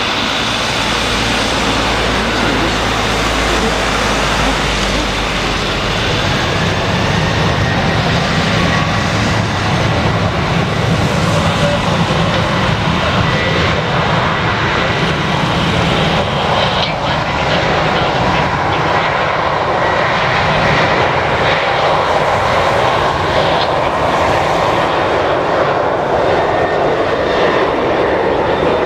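Jet airliner's engines running, a loud steady rush of noise with a faint high whine.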